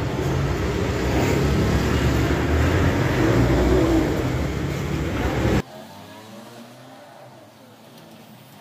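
A motor vehicle engine running steadily. It cuts off suddenly about five and a half seconds in, leaving only faint background sound.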